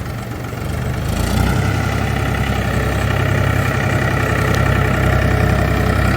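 An engine running steadily, picking up and getting louder about a second in, then holding an even speed.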